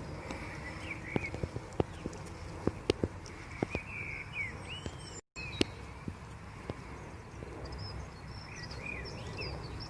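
Outdoor ambience with birds chirping on and off, and a run of sharp clicks and knocks in the first half to six seconds. The sound drops out completely for a split second about five seconds in.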